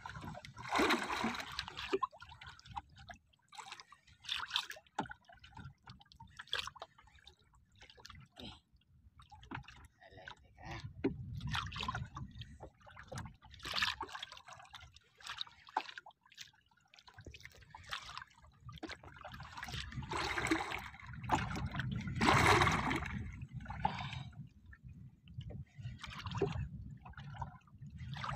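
Sea water lapping, sloshing and splashing against the side of a small outrigger boat in irregular washes, with low rumbling at times.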